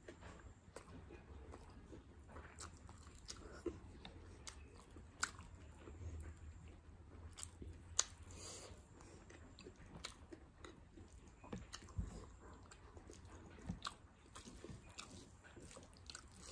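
Faint, close-miked eating sounds: a person chewing and biting into a meal of rice and curry, with scattered wet clicks and small crunches.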